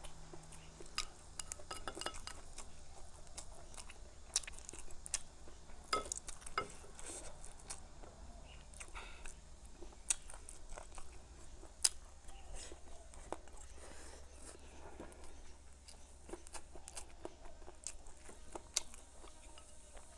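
Close-up chewing and crunching of rice and a stir-fry of sauerkraut, bamboo shoots and diced cured pork, with many small crackles. A few sharper clicks come from chopsticks against the porcelain bowl.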